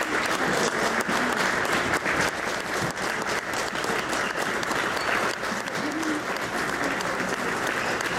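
Crowd applauding steadily: dense, continuous hand-clapping.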